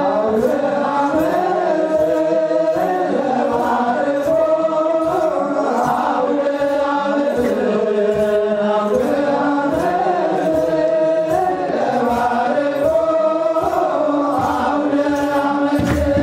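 Ethiopian Orthodox clergy chanting a wereb hymn together, many men's voices in slow, sliding melodic lines. Kebero drum strokes fall about twice a second, with the drum louder near the end.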